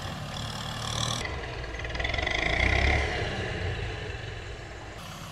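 Kubota M6040SU tractor's diesel engine working under load as its front blade pushes sand, growing louder about two seconds in and then easing off.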